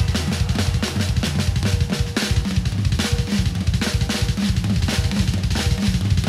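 Background music: a rock-style track with a busy drum kit (kick, snare, cymbals) hitting in a steady fast rhythm over a heavy bass line.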